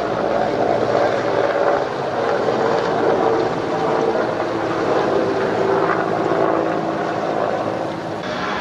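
Beriev Be-200 amphibious jet flying over, its twin turbofan engines making a steady drone with slowly shifting tones.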